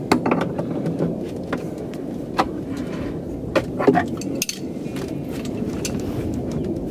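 Sharp metal clicks and clinks of a wrench turning a nut on a steel all-thread rod held with pliers, scattered over the first four seconds or so, then a steady background hum.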